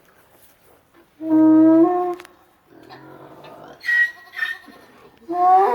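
Farm animals calling: one long, loud call with a steady pitch about a second in, two short high cries around four seconds, and another call that rises and falls near the end.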